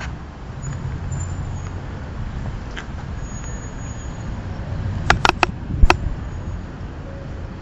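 Bentley Continental GT Speed's twin-turbo W12 engine running steadily with a low rumble. About five seconds in comes a quick cluster of sharp clicks.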